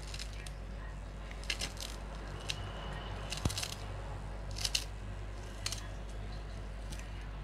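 Kitchen knife cutting through a bunch of fresh coriander held in the hand: a handful of short, crisp cuts at irregular intervals, over a steady low hum.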